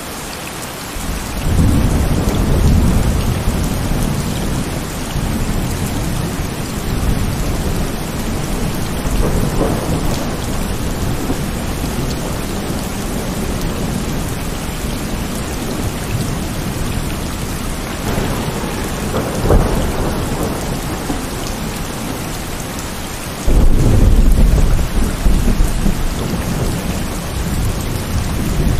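Heavy rain falling steadily with rolling thunder: a loud rumble builds about a second and a half in, weaker rolls come around ten and twenty seconds in, and a sudden loud thunderclap breaks near the end and rumbles on.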